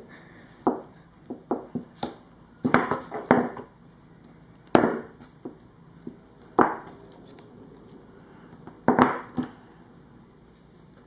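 Rolling pin being worked over a lump of polymer clay, giving a dozen or so irregular knocks and short rustles as it is pressed, rolled and shifted, with quiet gaps between them.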